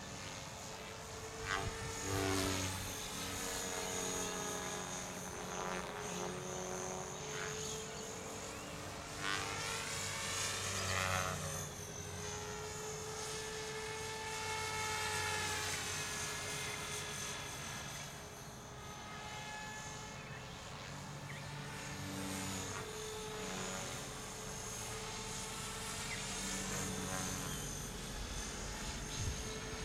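6S Blade Fusion 360 electric RC helicopter flying: the whine of its motor and rotors, sliding up and down in pitch several times as it manoeuvres and passes, with louder swells about 2 and 11 seconds in.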